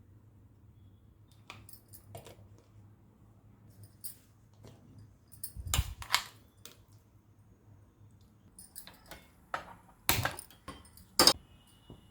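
Kitchen utensils clinking and clattering: scattered sharp metallic knocks, the loudest pair about six seconds in and a louder run of them near the end.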